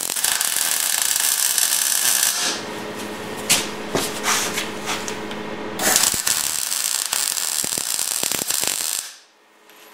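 MIG welder arc crackling steadily as a bead is laid on the steel frame, breaking off for a few seconds while a handheld power tool hums and a few metal knocks ring out, then crackling again before cutting off abruptly near the end.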